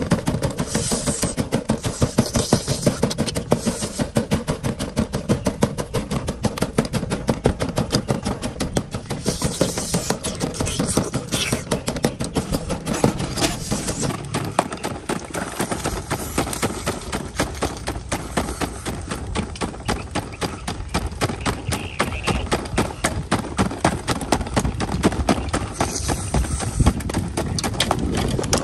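Wooden pestle pounding red chilies and other ingredients in a mortar: quick, even thuds, several a second, kept up without a break.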